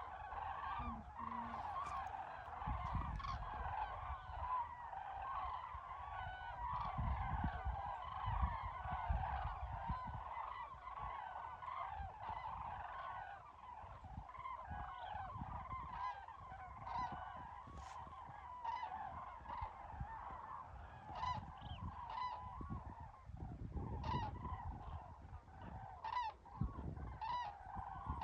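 A flock of common cranes calling on migration: many trumpeting calls overlapping at once, with no break. An uneven low rumble runs beneath the calls.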